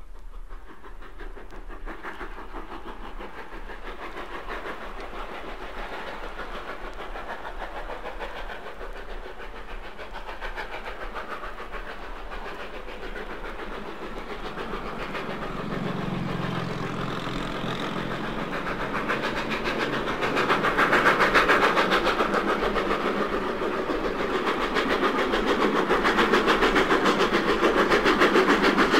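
Southern Railway 'N' class 2-6-0 steam locomotive No. 31840, a two-cylinder engine, working hard up a 1 in 37 gradient with a train, its exhaust beats echoing. It grows steadily louder as it approaches.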